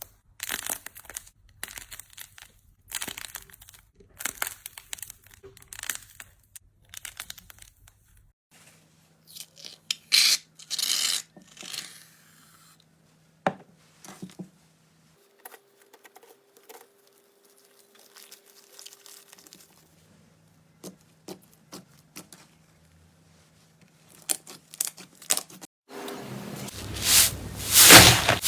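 Slime being handled by hand, with many short sounds from squeezing, stretching and pressing it. The sounds come in groups with pauses between them and grow louder near the end.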